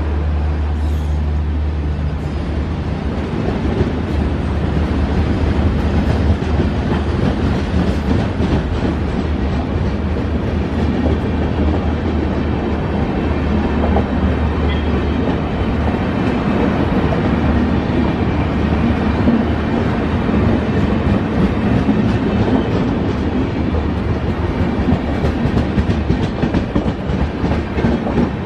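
Rajdhani Express LHB passenger coaches rolling past at speed: a steady rumble and rattle of wheels on the rails with a fast clatter over the rail joints. A deep low hum runs under the first half and fades out around the middle.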